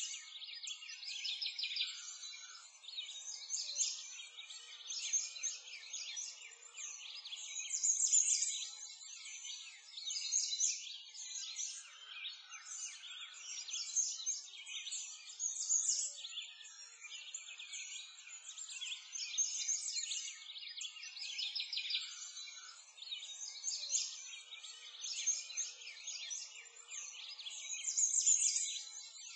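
A chorus of many small birds chirping, dense overlapping calls that swell and fade every couple of seconds.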